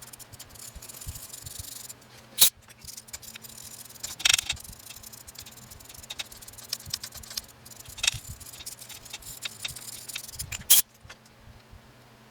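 Hand work with metal tools and hardware at a milling machine: a rubbing scrape for about two seconds, then small scattered rattles broken by four sharp clanks, the loudest near the end.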